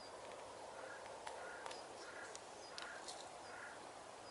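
A crow cawing in the distance, a run of about five short hoarse caws evenly spaced, with a few faint clicks.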